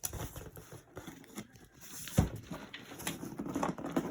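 Irregular handling noise: light knocks, taps and rustles, with one sharp thump about two seconds in, as of a gift package being moved and opened.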